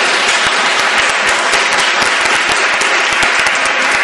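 Audience applauding: many hands clapping at once, steadily through the whole stretch.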